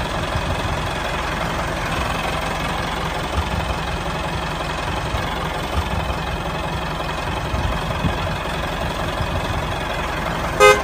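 Tractor engine running steadily, with a brief horn toot right at the end.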